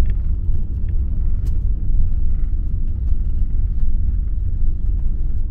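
Steady low rumble of a motorhome on the move, heard from inside the cab: engine and road noise.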